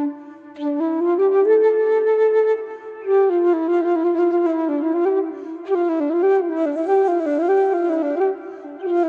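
Flute playing a slow meditative melody in phrases, with brief pauses between them. The later phrases have quick ornamented turns between neighbouring notes.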